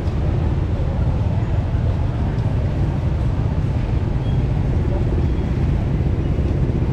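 Busy street-market ambience: a steady low rumble of passing motor traffic, with background voices.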